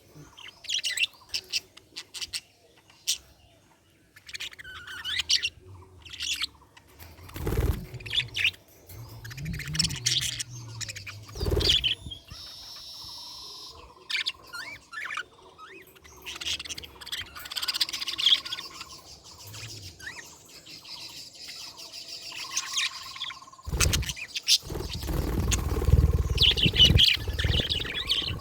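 Budgerigars chirping and warbling in quick, irregular runs of short high calls, with a few low thumps in between.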